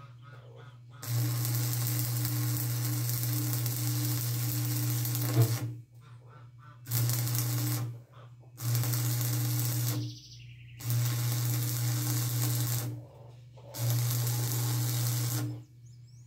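Electric arc welder laying short beads: five bursts of sizzling crackle over a steady electrical hum, each starting and stopping abruptly, the first and longest about four seconds.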